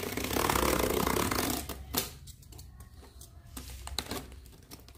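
Packing tape on a cardboard box being slit open with a blade: a rasping tear lasting about a second and a half, followed by a few light knocks of cardboard being handled.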